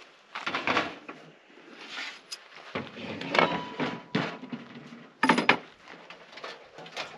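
A series of knocks and clatters as a portable propane camp stove is set down on a plastic folding table and its lid is lifted open. The loudest bumps come about three and a half and five seconds in.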